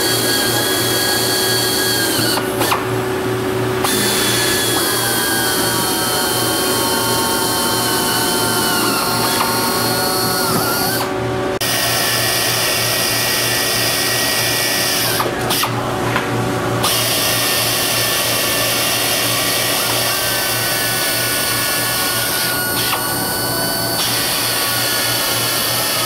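Two pneumatic air drills running with a steady high whine, the pitch sagging as the bits cut through the 6061-T6 aluminium wing skin into the spar, with a few brief breaks in the sound.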